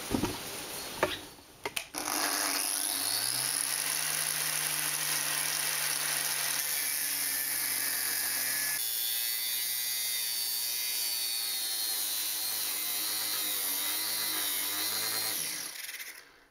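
Angle grinder starts and spins up, then cuts steel with a thin 1.2 mm Ataman abrasive cutting disc. Its motor note drops to a lower pitch about nine seconds in. Near the end the motor stops as the disc binds in the cut and the grinder's protection trips.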